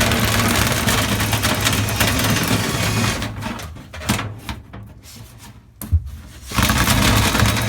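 Dryer vent cleaning equipment running loudly, a motor hum under rushing air. It cuts out for about three seconds midway, with a few short knocks, then starts up again.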